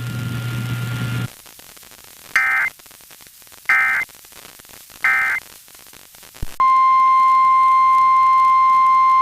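Weather-radio broadcast hiss and hum cut off, then three short identical data bursts about 1.3 s apart: the EAS/SAME end-of-message signal closing the warning. About six and a half seconds in, after a click, the loud steady 1050 Hz NOAA Weather Radio warning alarm tone starts for the next alert.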